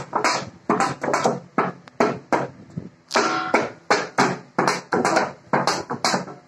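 A metal thali (dinner plate) played by hand as a percussion instrument, struck in a quick, steady rhythm of about three strokes a second, each with a short metallic ring. One stroke about halfway through rings out longer with a clear tone.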